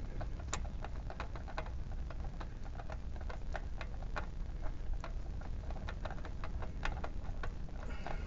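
Engine oil dripping from a loosened oil filter into a catch pan: a run of small, irregular ticks, several a second, over a low steady rumble.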